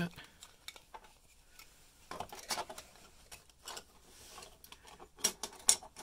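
Handling noise from an RV furnace sail switch and its plastic mounting bracket: light rubbing and tapping as the switch is fitted into the bracket, with two sharp clicks near the end.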